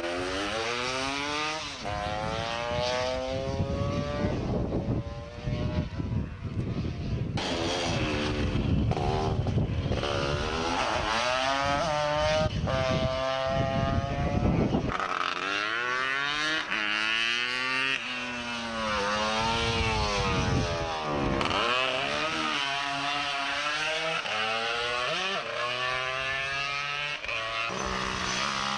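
Two-stroke racing scooter engines revving hard, the pitch climbing through each gear and dropping at each change, as several scooters pass in turn.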